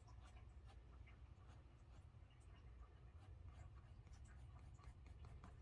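Derwent Drawing Pencil scratching faintly across sketchbook drawing paper in many short shading strokes, over a low steady hum.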